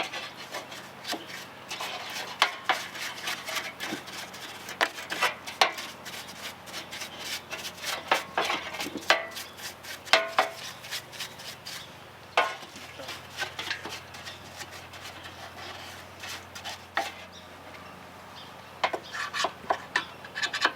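Soft bristle brush scrubbing the plastic cover of a Poulan Wild Thing chainsaw with gasoline: irregular rubbing strokes, mixed with sharp clicks and knocks as the part is handled.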